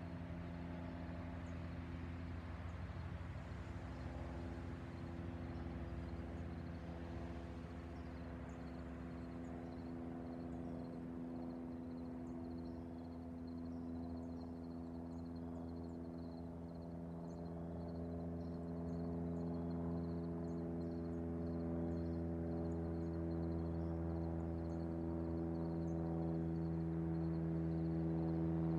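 Cessna 172 Skyhawk's piston engine and propeller droning in flight, a steady pitched hum that grows gradually louder as the plane approaches.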